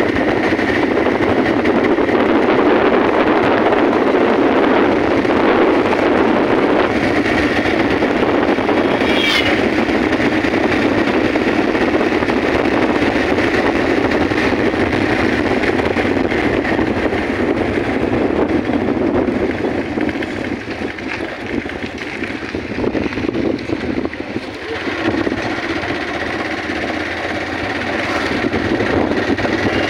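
Motorcycle being ridden along a road: steady engine and road noise with wind rushing over the microphone, easing off in level for a few seconds about two-thirds of the way through. A brief high chirp cuts in about nine seconds in.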